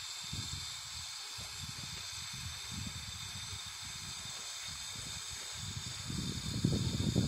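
Steady hiss of steam escaping from the standing Jupiter replica 4-4-0 steam locomotive, under steam but not moving, with a low, irregular rumble that grows louder near the end.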